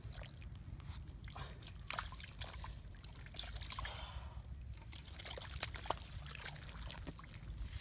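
Hands squelching and splashing in wet, watery mud, with irregular small slaps and wet clicks as the mud is dug through by hand for fish.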